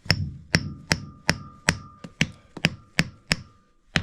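Hammer blows on metal, about nine sharp ringing strikes at a steady two or so a second, driving a cap tight onto a house-trap sewer cleanout.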